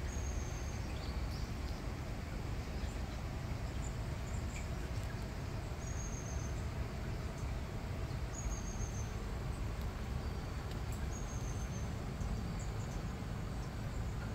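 Steady low background rumble, with a short high chirp every two to three seconds.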